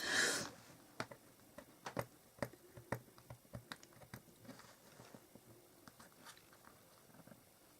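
Faint, scattered light clicks and taps of card and paper being handled, with a short rustle right at the start; the taps thin out after about four seconds.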